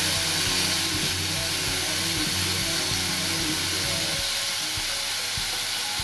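Pieces of fish frying in hot oil in a stainless steel pan: a steady sizzle with scattered crackles, stirred with a spatula during the first few seconds.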